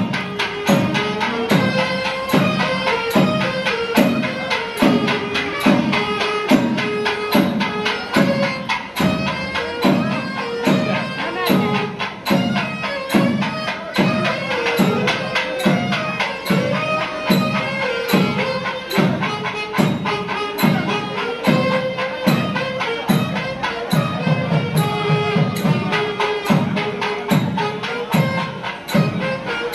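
South Indian temple festival music: a reed pipe carries a sustained melody over a steady drum beat of a little under two strokes a second.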